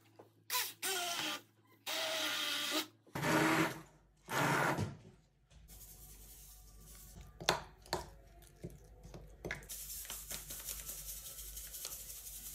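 A handheld immersion blender runs in four short bursts through cottage cheese and egg. Softer rustling and light clicks follow as dry semolina is poured, ending in a steady hiss of pouring grains.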